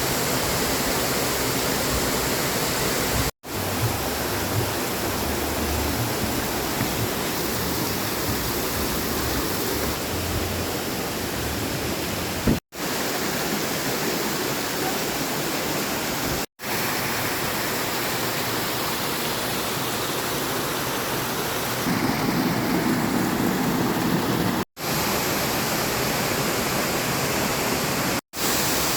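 Waterfall: a steady rush of falling water, broken by five very short silences where clips are joined.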